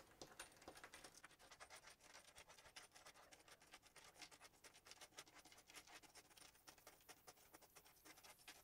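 Faint clicking and scraping of small metal swivel clasps being slid one at a time across a cutting mat and tapped against each other as they are counted out by hand.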